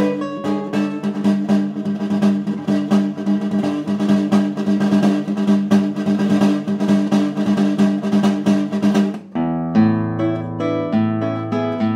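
Classical guitar played solo: a fast, dense passage with a noisy, rattling texture over held notes, breaking off about nine seconds in to clearer, separate plucked notes over low bass notes.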